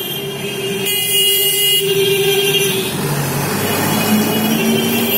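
Busy town street traffic: motor vehicles running past, with horns sounding in long steady tones.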